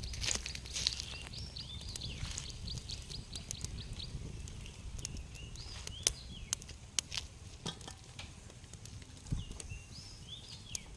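Outdoor rural ambience: birds giving short high chirps in little clusters, with scattered sharp clicks and taps over a low steady rumble.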